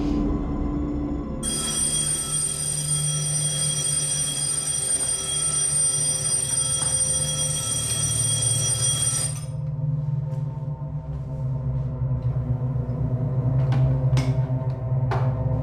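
Alarm clock ringing, a steady high-pitched ring for about eight seconds that cuts off suddenly; it is the alarm set to signal waking the girl for her medicine.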